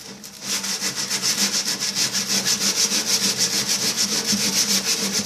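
Rust being scrubbed off the bare metal inside a microwave oven's cavity with an abrasive, in fast back-and-forth strokes about five a second. The strokes start about half a second in.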